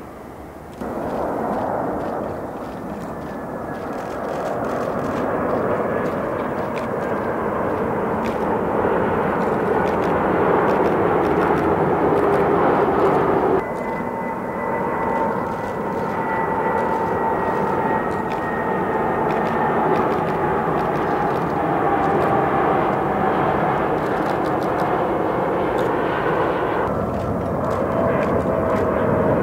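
Jet airliner engines in three clips cut together. First a jet rush that grows louder over the first half. Then an Airbus A320 on approach, its engine whine falling slowly in pitch. Then a Boeing 777 on approach near the end.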